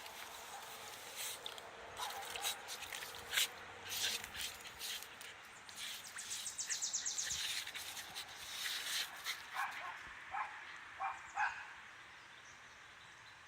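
Dog digging in wet dirt with its paws, a series of quick scratching scrapes that speed into a rapid run about halfway through. A few short whimpers come near the end.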